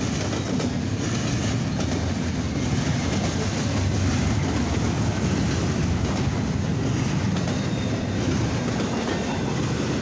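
Double-stack intermodal freight cars of a long CSX train rolling past: a steady low rumble of steel wheels on the rails.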